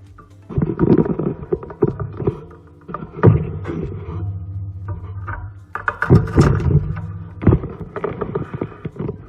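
Close handling noise: irregular knocks, clicks and rustling as a desk lamp and its parts are moved and measured on a table, over a steady low hum.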